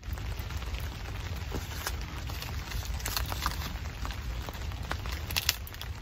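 Steady rain pattering on a tarp, mixed with a wood fire crackling in a small box stove. Scattered sharp ticks run throughout, with one louder crack about five and a half seconds in.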